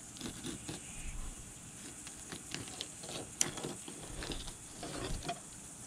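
Fillet knife cutting along a bass's backbone: faint, irregular clicks and scrapes as the blade rides over the bones, with one sharper tick about three and a half seconds in.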